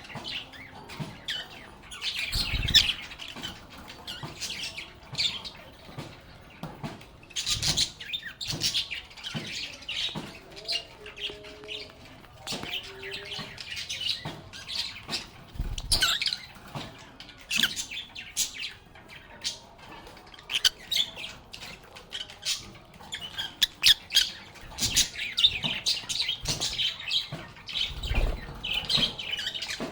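Pet lovebirds calling: a busy, unbroken stream of short, sharp, high-pitched chirps, with a few brief low thumps mixed in.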